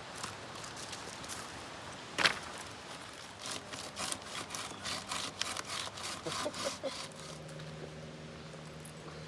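Firewood being worked by hand: a single sharp crack about two seconds in, then a quick run of rasping strokes, about three a second, that stop about seven seconds in. A low steady hum follows.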